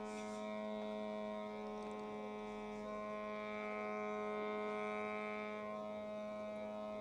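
A steady hum of several held tones, unchanging throughout.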